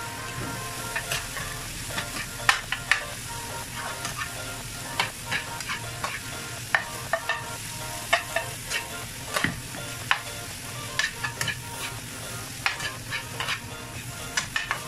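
Diced sausage, chicken and scrambled egg sizzling in a frying pan while a metal spatula stirs them, its edge scraping and clicking against the pan at irregular moments throughout.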